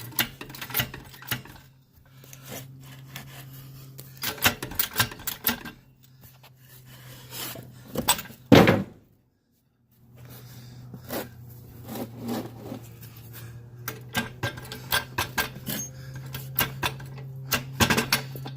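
Handling noise from close-up work on the mower and its gear: irregular clicks, knocks and rubbing over a steady low hum. A loud knock comes about eight and a half seconds in, followed by a second of dead silence.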